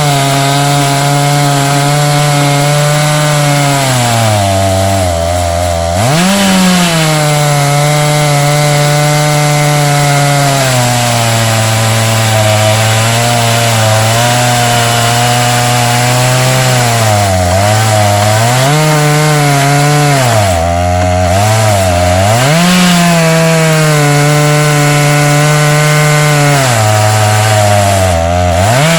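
Chainsaw on an Alaskan mill running at full throttle, ripping lengthwise through a log. The engine pitch sags several times under the load of the cut and climbs back up.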